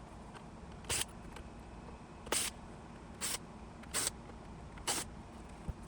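Five short, sharp clicking scrapes about a second apart, from a small Torx driver working T6 screws out of a car radio unit.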